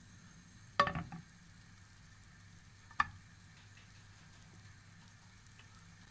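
Butter sizzling faintly in a nonstick frying pan over a low steady hum, with a short clatter of hard knocks against the pan about a second in and one sharp tap at about three seconds, as a slice of bread goes in to fry.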